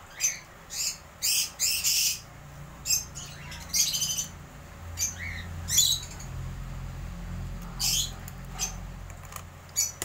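Cockatiels calling: many short, shrill squawks and chirps at an irregular pace. A low, steady rumble sits underneath from about two seconds in until near the end.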